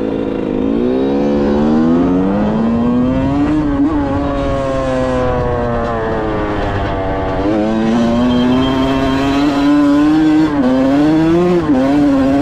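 2005 Yamaha YZ125's single-cylinder two-stroke engine running, its pitch rising and falling again and again as the throttle is opened and rolled off.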